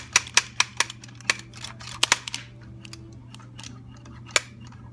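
Sharp, irregular clicks and snaps of hard plastic and metal from handling a two-part epoxy dispensing gun and fitting its mixing nozzle: several in quick succession in the first two seconds, then one more near the end.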